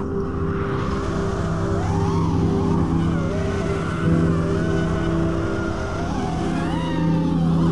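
Brushless motors and propellers of a 5-inch FPV freestyle quadcopter (TBS Steele Silk motors, 5-inch three-blade props) whining, the pitch rising and falling continuously with the throttle.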